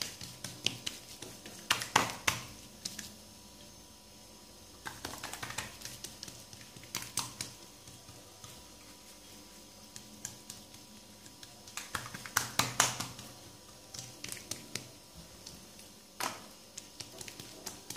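Hands pressing and spreading msemen dough flat on a hard countertop: light taps and clicks of fingers on the surface, coming in several scattered clusters.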